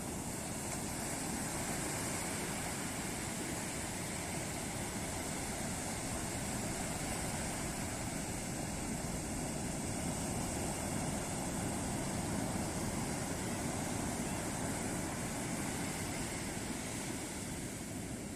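Ocean surf breaking on a beach: a steady rush of waves that swells gently a couple of times.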